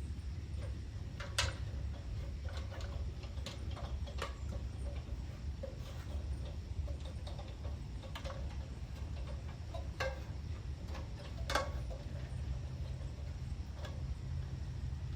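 Scattered sharp clicks and knocks from someone working up a ladder, spaced unevenly, one to a few seconds apart, over a steady low rumble.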